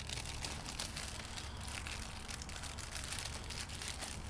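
Plastic packaging crinkling and rustling with many small crackles as it is handled and pulled at by hand, trying to tear it open.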